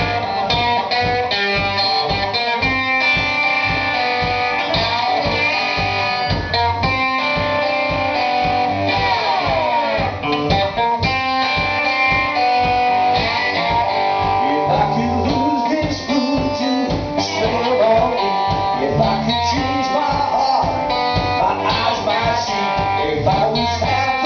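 A live band playing: electric guitars over bass and drums, with a steady beat and sliding guitar notes in places.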